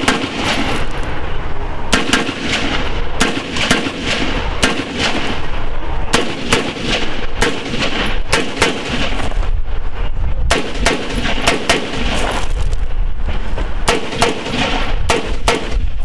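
Rifle shots from a scoped AR-style rifle, fired one at a time in a long string of sharp cracks at roughly one to two a second, with short pauses between groups.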